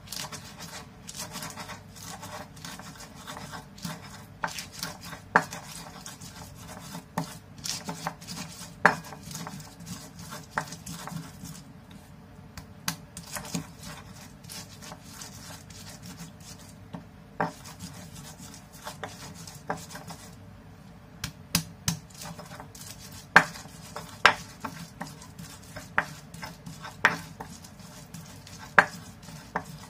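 Stone pestle (ulekan) crushing and grinding chilies, garlic and kencur in a stone mortar (cobek): a gritty scraping rub broken by irregular sharp clacks of stone on stone.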